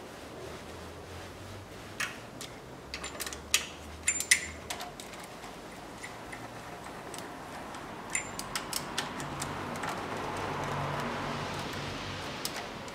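Ratchet wrench clicking in several short runs as the camshaft bearing cap bolts on a Toyota 3S-FE cylinder head are snugged down evenly, the stage before final tightening that keeps the camshaft from cocking in its bearings.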